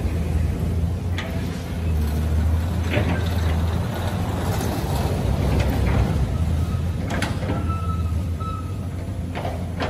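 Caterpillar hydraulic excavator's diesel engine running steadily while it digs, with a few sharp metallic clanks from the working machine.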